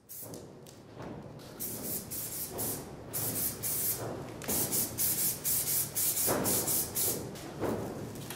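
Aerosol spray paint can hissing in a string of short bursts as black paint is sprayed through a paper stencil; the bursts come longer and closer together after about three seconds.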